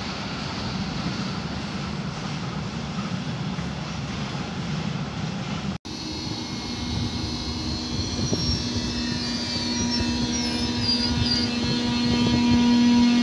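A steady rumbling noise, then after a sudden cut an ICE 3 high-speed electric train's traction equipment humming with a steady multi-toned whine that grows louder toward the end as the train gets ready to move off.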